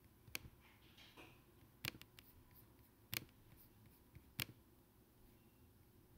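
Four sharp clicks of a computer mouse, a little over a second apart, against near silence.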